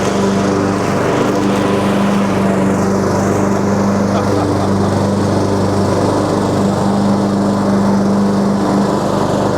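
Husqvarna TS142 riding lawn mower engine running steadily with the mower blades engaged, mowing.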